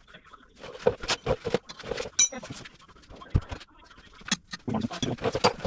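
Metal parts and tools being handled in a run of irregular clinks, clicks and knocks. They begin about a second in and continue on and off.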